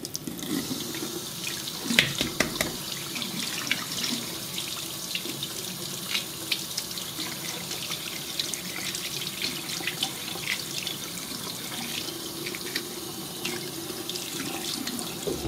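Bathroom sink tap running, the stream splashing into the basin and over hands rinsing freshly hard-boiled eggs as they are peeled, with small ticks and splashes throughout. The water is shut off at the end.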